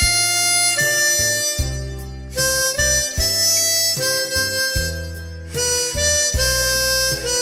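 Harmonica playing a slow melody of long held notes, about one note a second, over a backing track with a bass line.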